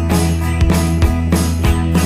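Background music: guitar-led rock backing track with a steady drum beat.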